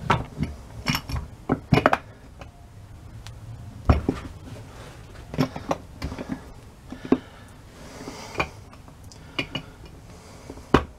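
Metal starter parts and hand tools being handled on a workbench: a dozen or so sharp metallic clinks and knocks at irregular intervals.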